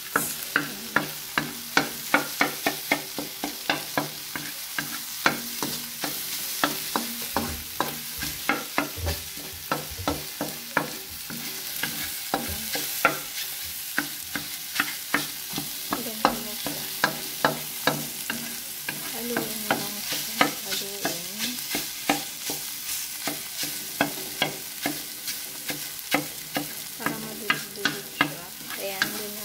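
Wooden spatula scraping and knocking against a metal pan, with sharp taps about two to three a second, as scrambled eggs with onion are stirred over the heat. The eggs sizzle steadily underneath.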